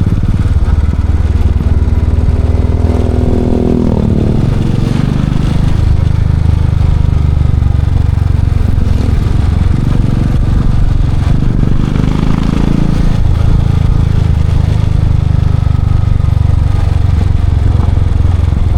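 Royal Enfield Classic 500's single-cylinder engine running loud through its exhaust, as on a ride. Its note climbs and then drops about four seconds in, and rises again briefly later on.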